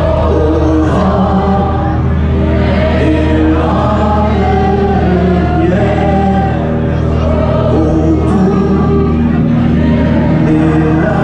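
A large crowd singing along together to amplified music, many voices on one tune over a steady low bass.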